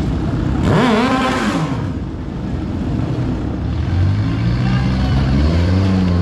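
A stunt motorcycle's engine revs up sharply and drops back about a second in. From about four seconds a car engine runs with a steady low drone that creeps slightly up in pitch, as the stunt car drives balanced on two wheels.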